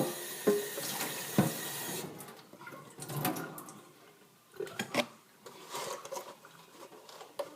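Tap water running into a sink, shut off abruptly about two seconds in; after that, a few scattered light knocks and clicks.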